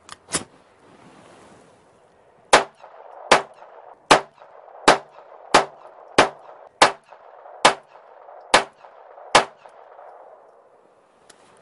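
Ruger SR22 .22 LR pistol: two metallic clicks as the slide is worked, then ten shots fired at a steady pace, about one every 0.7 to 0.9 seconds, from a magazine of standard-velocity ammunition.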